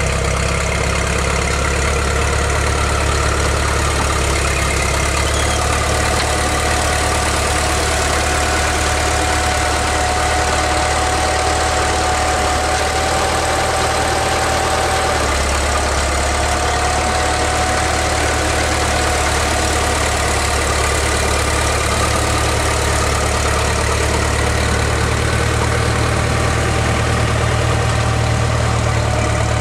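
Caterpillar D4C crawler dozer's diesel engine idling steadily, with a slight change in its note about halfway through.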